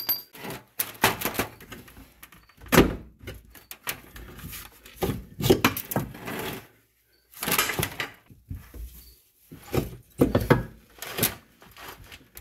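Irregular metal clunks and knocks from working on a BMW E46's rear suspension: the lower camber arm bolts being forced out with the wheel pushed for leverage, and a new adjustable lower camber arm being fitted.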